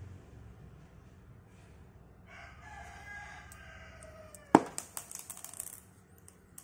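A rooster crows once, a drawn-out call of about two seconds whose pitch falls at the end. Just after it comes a quick run of sharp clicks and knocks, the first the loudest, from small tumbled stones being handled.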